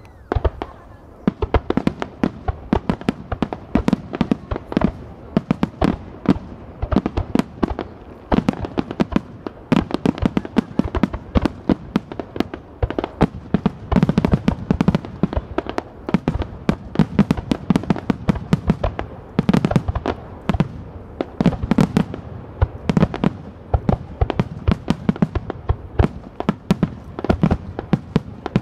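Aerial firework shells launching and bursting in a rapid, continuous barrage: many sharp reports a second, overlapping one another.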